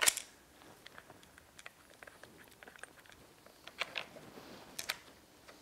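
Faint small clicks and taps of steel bolts being set by hand into a nylon outboard water pump housing, with a few sharper clicks at the start and about four and five seconds in.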